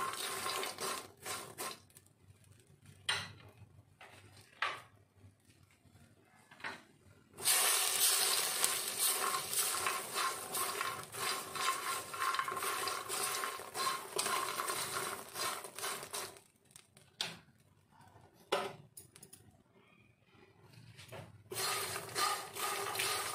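A spatula stirring and scraping makhana (puffed lotus seeds) around a metal pan, the light seeds rattling against the pan. At first there are scattered scrapes; about seven seconds in, steady stirring starts and runs for about nine seconds, then stops, and it resumes near the end.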